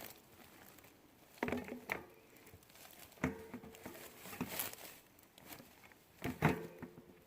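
Faint handling of gear: rustling and light knocks in four or so separate bursts, a couple of them with a brief ringing tone.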